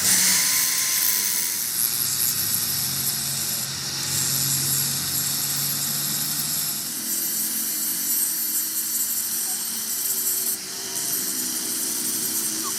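A power tool grinding the steel of a truck's front axle, giving a steady high hiss.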